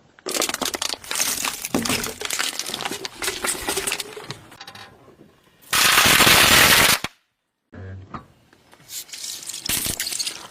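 Objects cracking and crunching under a crushing press, a rapid run of sharp snaps and crackles. About halfway there is a loud hissing burst lasting just over a second, then a sudden dead cut and more cracking near the end.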